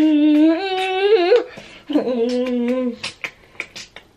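A voice humming long held notes: the first slides upward with a wobble and breaks off, then a lower note is held for about a second. A few short clicks follow near the end.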